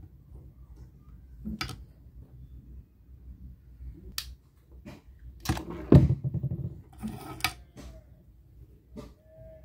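Handling noises: scattered light clicks and taps as craft sticks and small toy-car parts are picked up, positioned and set down on a tabletop. The loudest knock comes about six seconds in, with a few quick taps about a second later.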